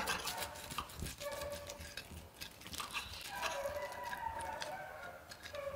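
Table knife sawing through the crisp fried breadcrumb crust of a stuffed chicken breast on a ceramic plate, with a fork holding it: a run of small crackly crunches, thickest in the first few seconds.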